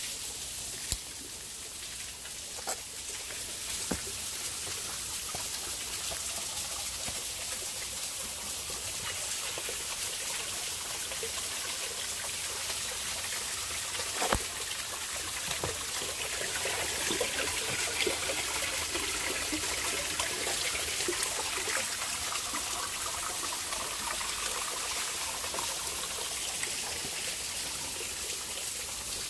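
A small stream trickling, growing a little louder through the middle and easing off again near the end. A few sharp knocks are heard, the loudest about halfway through.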